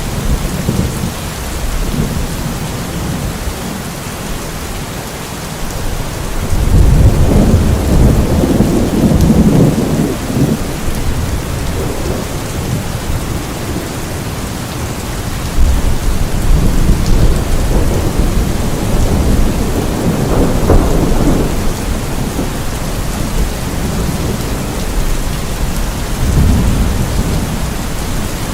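Steady rain with rolling thunder, the deep rumbles swelling about seven seconds in and again for several seconds from about sixteen seconds in.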